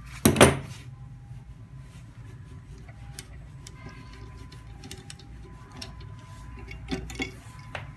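Metal pliers clicking sharply on the extruder mount's nut about half a second in, followed by light ticks and small knocks of hand work on the extruder's metal parts and filament fitting. Under it runs a steady low hum with a faint high whine.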